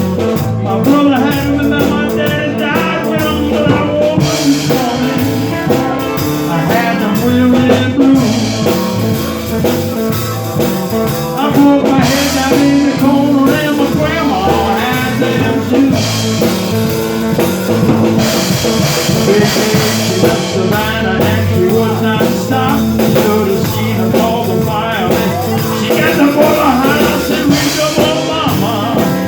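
A blues band playing an instrumental passage, with harmonica and guitar.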